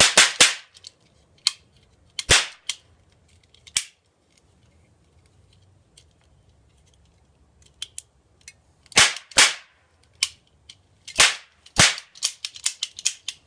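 Toy cap charges going off in a string of sharp, loud bangs: two at once, two more spaced a second or so apart, a pause of about five seconds, then pairs of bangs and a quick rattle of smaller pops near the end. Loud enough to leave ears ringing.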